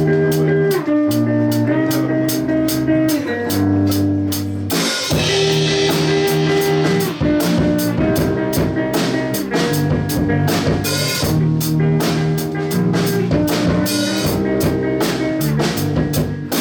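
Rock band playing live: a drum kit keeping a steady beat under held guitar chords, the instrumental opening of a song before the singing comes in.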